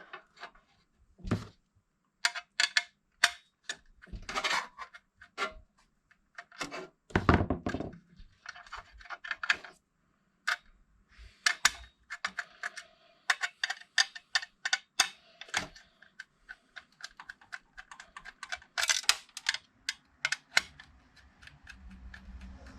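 Hard plastic and metal computer parts being handled during a desktop PC teardown, with irregular clicks and taps, a few heavier knocks and short scrapes.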